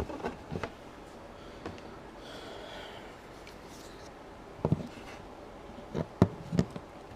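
Handling the opened sander's plastic housing and cells: a few light knocks and clicks, with a short rubbing sound about two to three seconds in.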